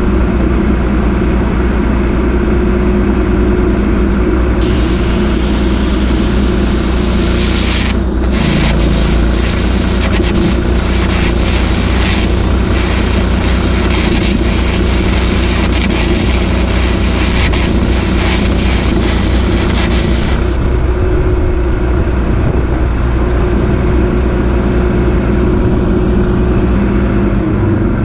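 An engine running steadily, joined from about five seconds in by the crackle and hiss of an electric welding arc on the steel excavator boom; the arc runs for about fifteen seconds and then stops.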